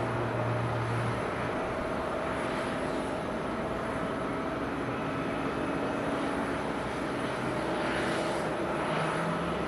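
Airbus A350-941's Rolls-Royce Trent XWB turbofan engines running: a steady jet rush with faint whining tones. A low hum underneath stops about a second in.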